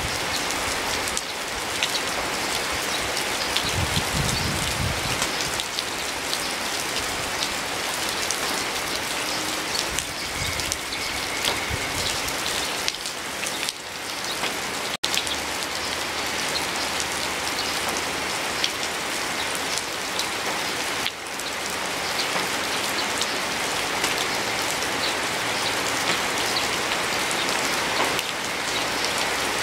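Steady rain falling, an even hiss dotted with many close individual drop impacts, with a split-second break in the sound about halfway through.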